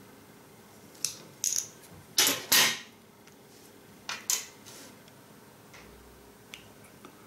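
Scissors prying open the small plastic battery cover of an LED armband, then the scissors and the round cover set down on a wooden tabletop. There are a handful of short clicks and scrapes, the loudest about two seconds in and a last one about four seconds in.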